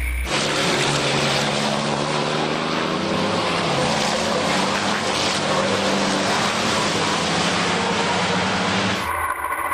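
Several racing trucks' diesel engines running hard as a pack drives along the track, a loud steady engine note over a broad rushing noise.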